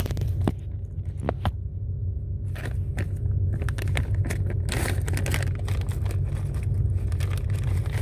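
Plastic zip bag of insulated crimp connectors rustling, with crackles and small clicks as a hand digs one connector out. The crackling is thickest about five seconds in, over a steady low hum.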